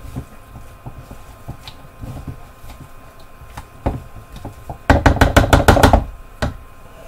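Silicone spatula folding a crumbly mix of crushed crackers and cheese cubes in a plastic mixing bowl, with soft scrapes and light taps against the bowl. About five seconds in comes a quick run of about ten sharp knocks within a second of the spatula against the bowl, the loudest part.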